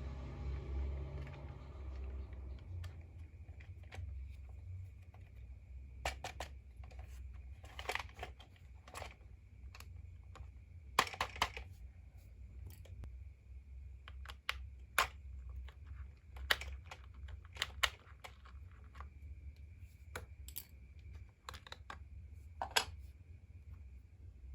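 Packaging and plastic toy parts being handled: scattered sharp clicks and short rustles over a steady low hum. A low rumble fades out in the first two seconds.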